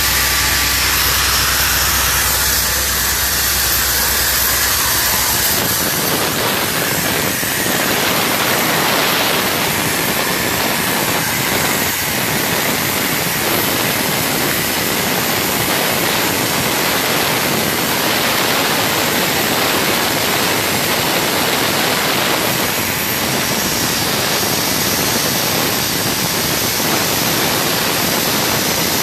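Oxygen plant machinery running with a loud, steady rushing hiss. A low hum underneath stops about five seconds in.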